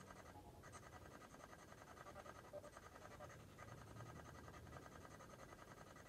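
Near silence: faint hiss and room tone.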